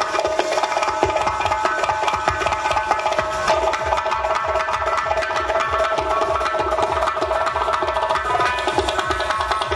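Several doira frame drums playing a fast, dense bazim rhythm of rapid strokes over sustained keyboard notes.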